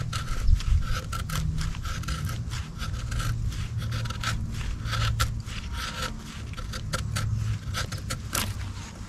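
Serrated edge of a Gerber LMF II knife scraping down a fatwood stick to raise feather-stick curls: a quick, uneven run of short rasping strokes.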